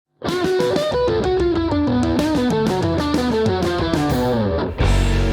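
Overdriven electric guitar through a BSM 71/73 treble booster, playing a fast single-note lead run with bends and vibrato, then striking a sustained chord near the end.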